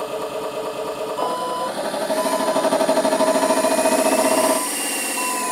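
Simulated Tatra 813 V12 truck engine sound from an ESP32 RC sound controller, played through small loudspeakers. It gets louder under throttle about a second in, holds with a pulsing beat for a few seconds, then drops back toward idle near the end.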